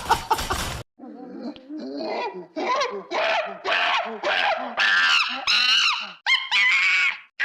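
A series of about a dozen short pitched cries or squeals, each bending up and down, growing louder and higher toward the end. Another loud sound cuts off abruptly just under a second in.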